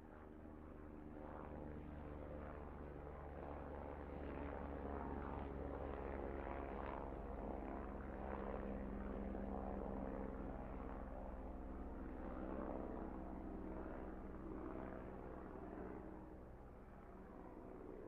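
Helicopter flying overhead, its steady rotor and engine hum growing louder to a peak about halfway through and then fading. Fairly quiet overall.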